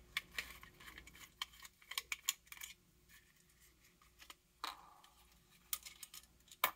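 Scattered small clicks and scrapes of a screwdriver turning small Phillips screws in a plastic projector lamp housing, with the plastic parts clicking as they are handled. The clicks come thickly for the first couple of seconds, pause, then return a few at a time near the end.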